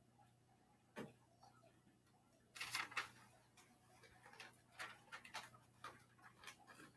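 Near silence: quiet room tone with a steady low hum, broken by a single sharp click about a second in, a short burst of noise a little before three seconds, and faint scattered ticks after it.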